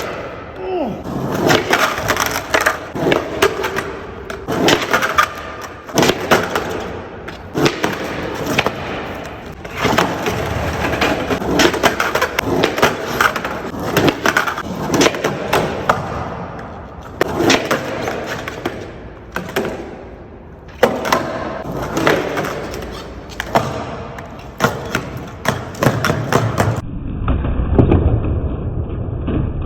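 Skateboard wheels rolling on hard ground, broken again and again by sharp clacks and slaps of the deck and trucks hitting the ground. Near the end the sound turns to a duller, muffled low rumble.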